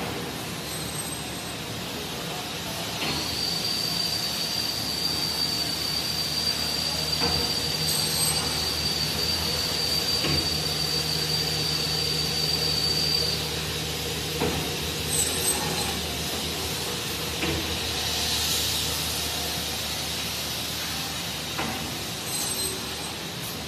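Holytek PUR profile-wrapping machine running: a steady mechanical hum, with a high steady whine from about three seconds in that stops about ten seconds later, and a few sharp clicks.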